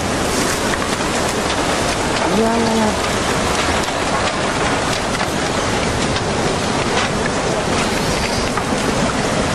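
Steady, dense rushing noise of water with scattered crackles and clicks. A short voice-like call sounds briefly about two and a half seconds in.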